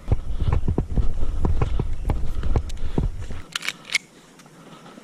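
Footsteps and scuffing with a heavy low rumble of gear rubbing on the microphone, cutting off sharply after about three and a half seconds, followed by a quick cluster of sharp clicks.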